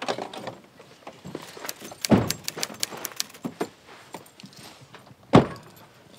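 Car doors shutting with two heavy thuds, about two seconds in and again near the end, the second the louder, with a run of light metallic clicks and jingles between them.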